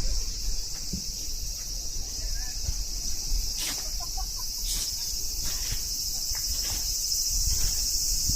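Steady high-pitched buzzing of summer insects, with a couple of short, sharp sounds near the middle.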